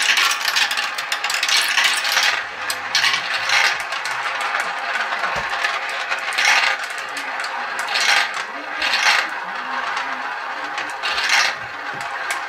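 Glass marbles rolling round and dropping through the plastic funnels of a Galt marble run: a continuous rolling rattle with frequent clicks as they knock together and fall into the base. Busiest for the first couple of seconds, then coming in short bursts of clicks.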